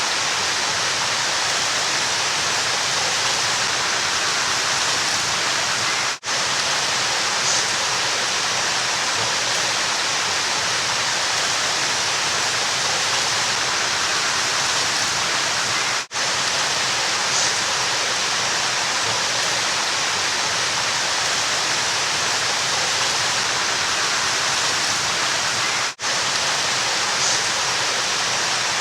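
River water rushing steadily, an even hiss of flowing water. It drops out for an instant three times, about every ten seconds, where a looped recording restarts.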